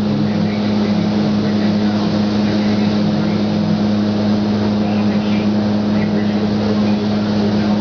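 Steady machine hum of a paint spray booth's ventilation, with the hissing air of a spray gun as paint is sprayed.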